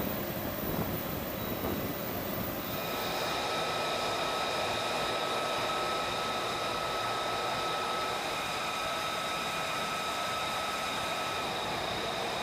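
Jet aircraft running on the ground: a steady rushing noise, joined about three seconds in by a high, steady whine of several tones.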